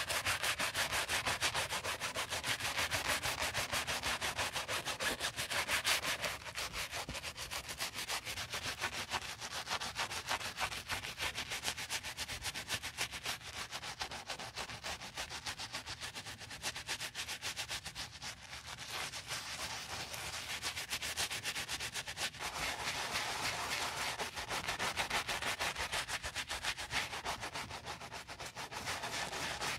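Bristle brush scrubbing soapy lather over a white leather sneaker in rapid back-and-forth strokes. The scrubbing is louder for the first several seconds, softer through the middle, and louder again for a stretch near the end.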